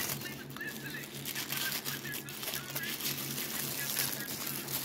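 Tissue paper rustling and crinkling in irregular crackles as it is pulled off a statue by hand, over a steady low hum.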